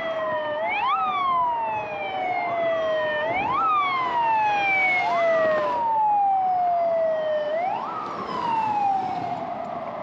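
Siren wailing: a tone that jumps up quickly and slides slowly back down, repeating about every two and a half seconds, with a second overlapping wail out of step with it.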